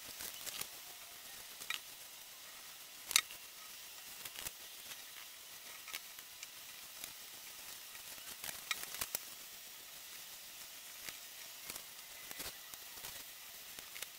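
Round sponge applicator dabbing paint onto a metal stool frame: soft, irregular dabs and light taps, with a sharper knock about three seconds in and a quick cluster of taps a little past the middle, over a faint steady hiss.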